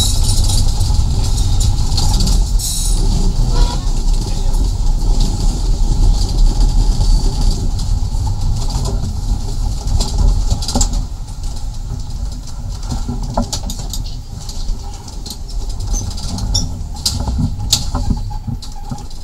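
The 1934 Nesa 929 electric tram running on its rails, heard from the driver's cab: a steady low rumble of wheels and running gear with occasional clicks over the track, growing quieter in the second half.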